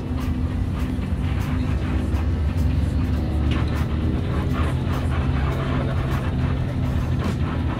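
Engine and road noise of a moving bus heard from inside its cabin: a steady low rumble with scattered rattles. Music plays along with it.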